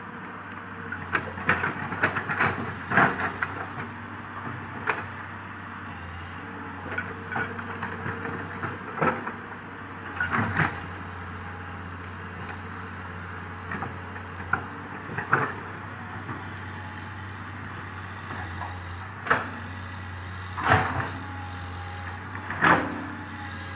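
Komatsu PC200 hydraulic excavator's diesel engine running steadily while digging, with scattered sharp clanks and knocks of the working machine, some in quick clusters of two or three.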